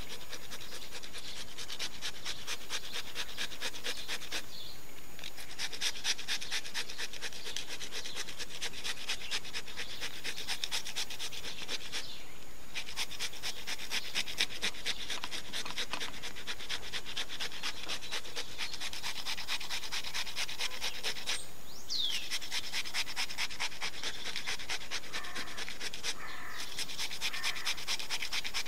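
Cucumber being grated by hand on a grater: a steady run of rapid, even rasping strokes, broken by a few short pauses.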